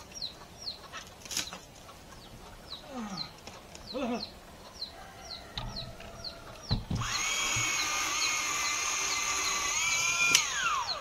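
Chickens clucking over quick, repeated high chirps. About seven seconds in, a chainsaw speeds up with a steady high whine, holds for about three seconds, then winds down near the end.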